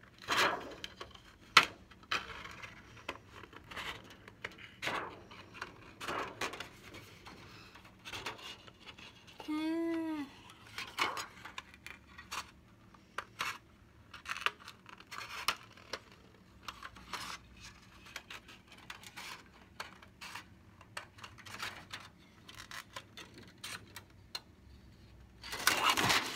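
Scissors snipping through a thin Shrinky Dink plastic sheet in short, irregular cuts, with the stiff plastic rustling as it is turned. A brief pitched tone rises and falls about ten seconds in, and the rustling grows louder near the end.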